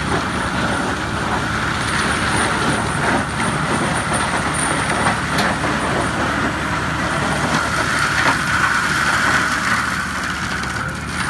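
Fendt 936 tractor running under load, powering an FAE forestry mulcher whose rotor shreds young pine trees: a loud, steady machine drone with a high steady hum, broken by scattered short cracks.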